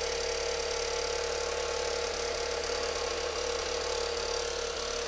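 Skoda Octavia's 1.8-litre four-cylinder petrol engine running with its ribbed drive belt removed, with a steady whining tone over the running noise. The noise is still there without the drive belt, which points to the timing-belt side; it comes from a failing timing-belt tensioner that lets the timing belt flap.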